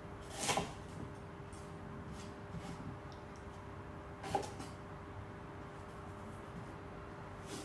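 Two short kitchen knocks from pear preparation at the counter, one about half a second in and a softer one around four seconds, over a faint steady hum.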